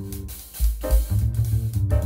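Instrumental background music with bass and drums, a heavy low beat coming in about half a second in.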